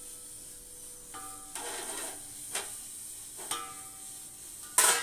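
Steel plate being set down inside a metal pot of hot water, knocking against the pot: a few light metallic clinks that each ring briefly, then a louder sharp clank near the end.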